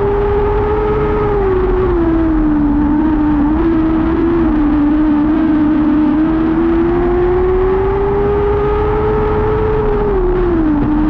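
Lightning sprint car engine running hard at high revs. Its pitch climbs slowly, then drops sharply about a second and a half in and again near the end, as the driver lifts off for the turns and gets back on the throttle.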